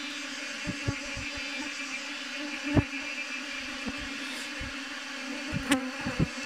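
A swarm of honeybees buzzing in flight in a steady, dense drone. Several brief, louder buzzes and bumps stand out, the strongest about three seconds in and again near the end.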